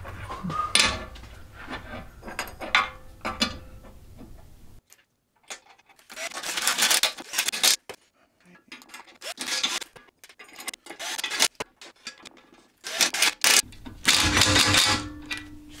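Metal parts being handled: sharp clanks and knocks with scraping and rubbing of steel on steel, in several separate bursts with short silences between them.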